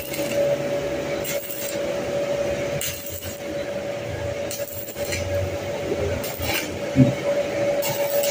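Stick (shielded metal arc) welding on thin-walled 3x3 cm square hollow steel: a steady crackling sizzle of the arc, with a steady hum under it. The crackle surges briefly about every second and a half, as the thin wall is welded by building up the bead in stacked layers.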